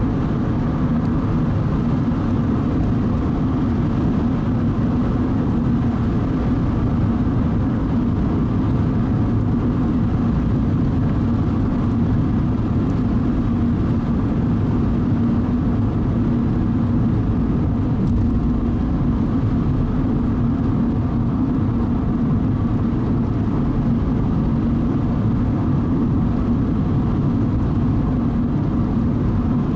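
Car driving at a steady speed: a constant drone of engine and road noise with a steady low hum.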